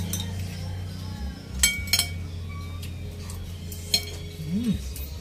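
Metal spoons and forks clinking and scraping against plates as a family eats, with a few sharp clinks spread through, over a low steady hum.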